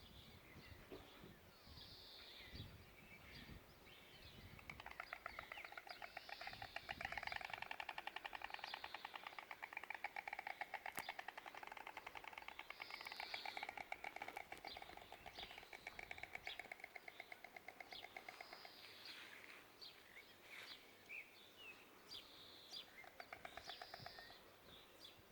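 White storks clattering their bills at the nest: a long run of rapid, even clacks starting about five seconds in and lasting some fifteen seconds, then a shorter burst near the end. Small birds chirp throughout.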